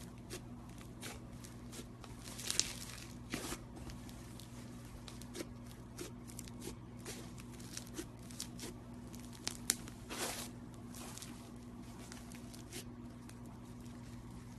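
Slime being handled: scattered sticky pops, crackles and short tearing sounds, loudest in a few bursts, over a steady low hum.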